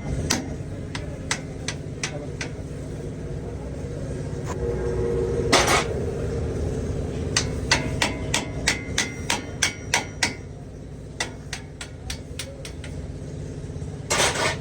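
Hand hammer striking, a series of sharp separate blows that come in a quick run of two or three a second around the middle, with a heavier blow about five seconds in and another near the end. A steady low hum runs underneath.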